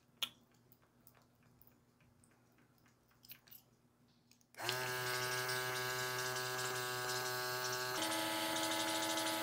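A couple of soft clicks from a foundation pump bottle, then about four and a half seconds in a small airbrush makeup compressor switches on and runs steadily, a motor hum with a hiss of air. Its tone shifts slightly about eight seconds in.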